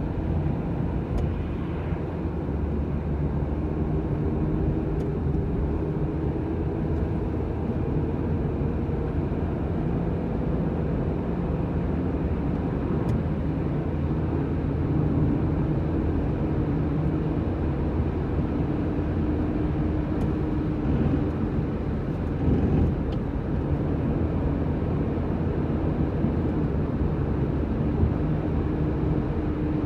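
A car driving: steady engine and road noise, a low rumble with a faint wavering engine tone.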